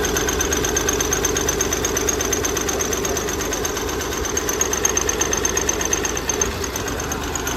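Hyundai Grand i10 diesel engine idling with a rapid, steady knocking clatter, the sign of a cylinder misfire from a faulty injector.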